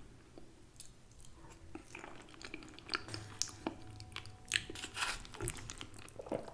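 A person chewing food with the mouth close to the microphone, faint wet clicks and light crunches scattered throughout.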